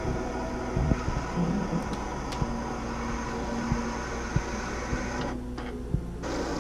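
A steady machine hum, like a fan or appliance running, with a few light clicks and knocks. The higher part of the hum cuts out for about a second near the end.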